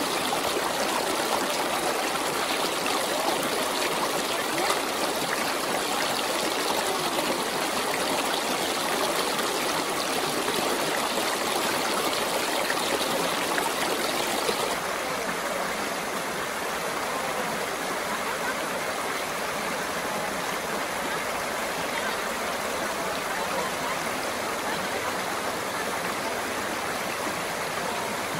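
Shallow river rushing over rocks in small rapids: a steady wash of white water that drops slightly in level about halfway through.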